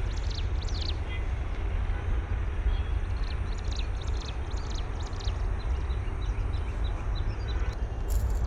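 Backhoe loader's diesel engine running with a steady low rumble, with faint high chirps or squeaks over it.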